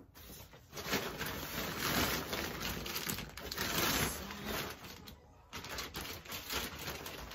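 Plastic bags rustling and crinkling as a bag of garden soil is pulled out of a plastic tote bag, with a short pause a little after halfway.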